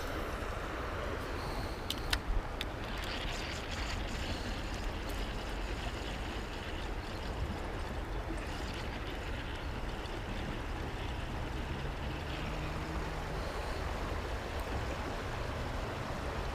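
Steady outdoor background noise: an even hiss over a low rumble, with a few sharp clicks about two seconds in.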